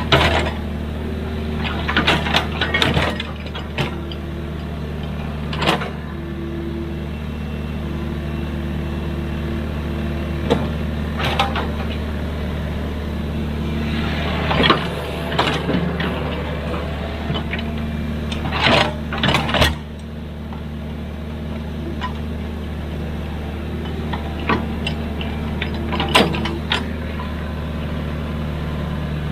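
Excavator engine running steadily under work, with scattered short knocks and clanks from the machine, a few coming in quick bunches.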